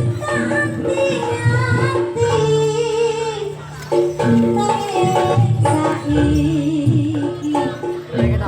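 Live Javanese jaranan gamelan music: pitched gamelan notes and low drum strokes, with a singing voice over them.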